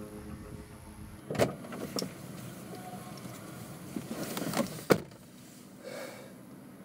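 A car door clunks open, someone climbs into the seat with rustling and thumps, and the door is slammed shut with a sharp thud.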